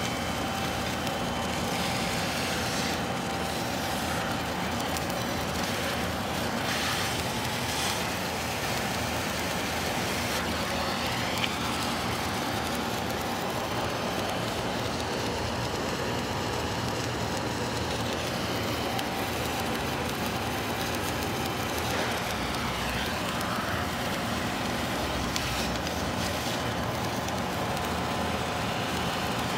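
Submerged arc welding running: a steady, unbroken noise from the arc burning under its blanket of granular flux and the welding machinery, with a faint steady tone.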